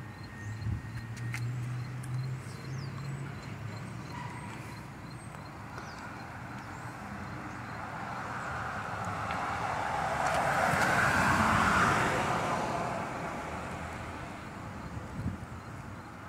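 A car passing by, its road noise building to a peak about two-thirds of the way through and then fading away.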